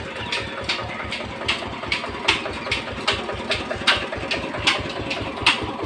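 Engine driving a village flour mill (chakki), running steadily: a fast low thudding with sharper knocks about two or three times a second.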